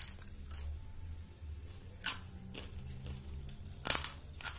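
Crisp fried cassava finger chips crunching: a few sharp, irregular snaps, the loudest about two seconds in and just before the end, with a faint steady low hum underneath. The crunch is the sign that the chips are fried crisp.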